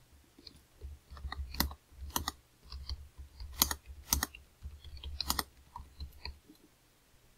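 Typing on a computer keyboard: a run of irregular key clicks with soft low thuds, stopping about six seconds in.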